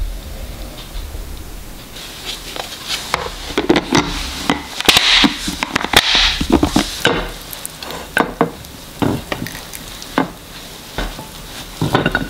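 Plastic food-storage containers being handled: a run of clicks, taps and knocks, with two longer scraping sounds about five and six seconds in.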